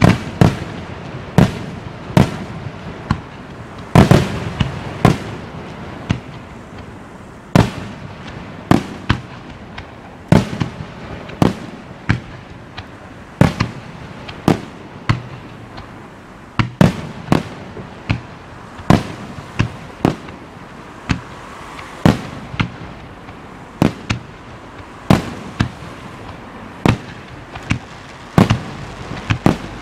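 Aerial firework shells bursting one after another in a continuous display, a sharp bang about every second, with crackle and rumble between the bangs.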